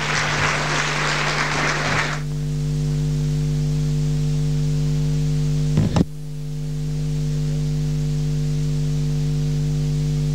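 Audience applause for about two seconds, then a steady electrical hum with a stack of overtones. The hum is cut off briefly about six seconds in and comes back.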